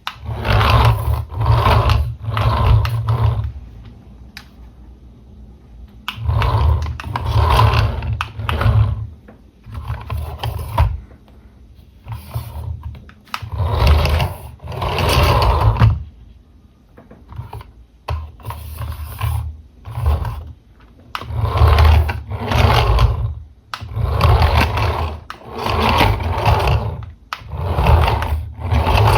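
Toy RC car's small electric motor and plastic gears whirring in repeated bursts of one to three seconds, with short pauses between.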